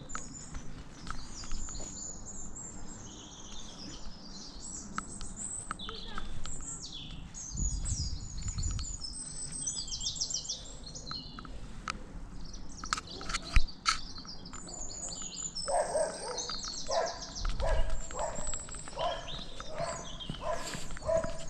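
Several wild birds singing and chirping, with quick high chirps and trills overlapping throughout. From about two-thirds of the way in, a run of evenly repeated, lower calls joins them.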